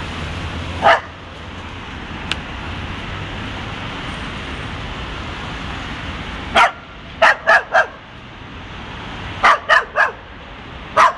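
Dog barking in short, sharp barks: one about a second in, then a quick run of four and another of three, and one more near the end. A steady hum of street traffic runs underneath.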